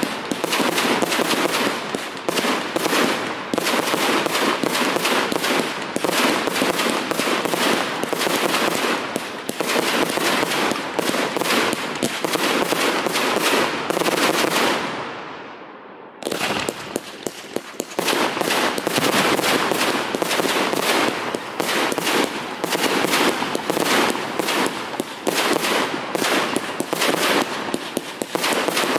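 Fireworks display: a dense, continuous barrage of rapid bangs and crackles. About halfway through it fades out, then breaks back in suddenly and carries on just as thick.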